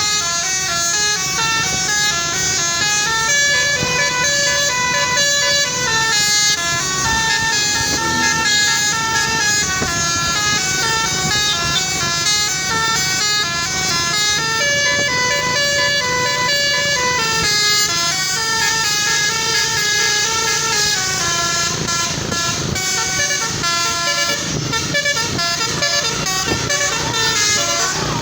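Basuri multi-tone telolet bus horn playing a melody, its notes stepping up and down with several horn tones sounding together, over the noise of the bus.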